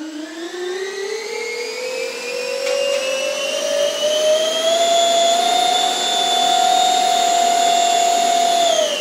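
Two 64 mm electric ducted fans driven by 4000 kV outrunner motors on a 4-cell lipo, spooling up: a whine that rises in pitch over about five seconds, holds steady at full throttle, then falls as the throttle is cut near the end.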